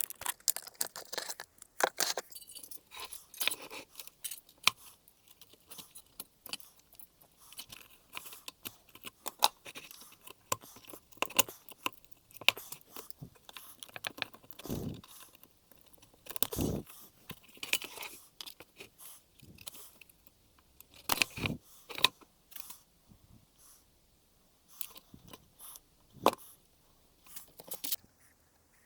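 Irregular clicks, knocks and scrapes of hands and tools working on a fan heater's plastic casing and parts, with a few louder thumps.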